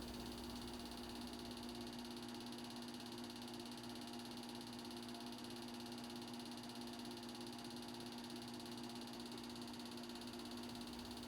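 Faint steady hum over an even hiss: background room tone, with no other sound.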